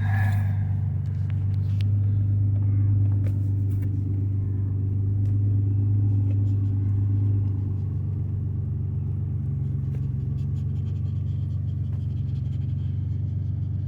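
Cabin sound of a 2005 Dodge Magnum SXT's V6 on the move: a steady low engine and road rumble, which eases off slightly about seven seconds in.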